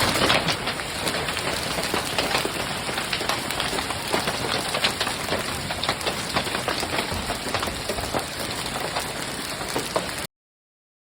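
Hail and rain pelting down: a dense steady hiss of falling rain, peppered with many sharp ticks of hailstones striking hard surfaces.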